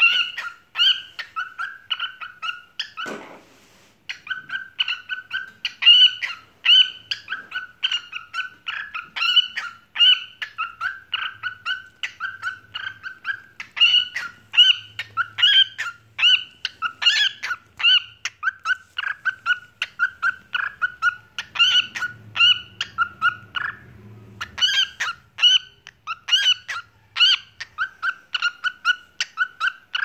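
Lutino cockatiel calling over and over in short, high chirping notes, about two or three a second, pausing briefly about three seconds in and again near the end.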